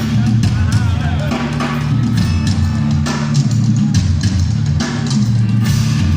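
Live metal band playing a tribal-style percussion passage: pounding drums and percussion over a steady low drone, with a little crowd noise.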